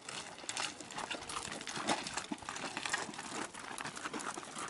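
Hooves of laden pack donkeys clopping and scraping on loose stones as the string of animals walks past, with irregular crunching steps on the gravel path.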